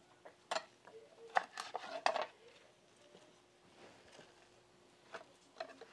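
Light clinks and knocks of kitchen dishes and utensils being handled: a cluster of short sharp ones in the first two seconds and a couple of fainter ones near the end.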